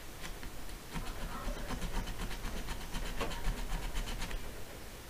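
Hand file scraping along the seam of a diecast metal model car body in quick, even strokes, taking down the casting line. The strokes stop near the end.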